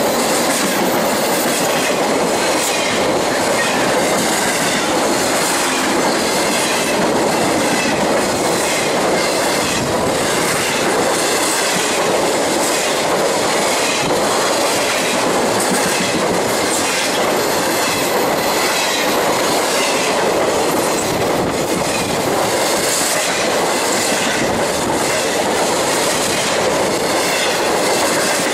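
BNSF freight train of empty intermodal cars passing at speed: a steady, loud rumble and rattle of steel wheels on rail, with rhythmic clicking over the rail joints about once a second.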